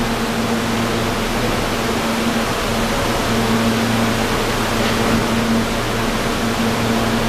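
An R160A-2 New York City subway car standing at the platform. It gives a steady electrical hum under an even wash of fan-like noise.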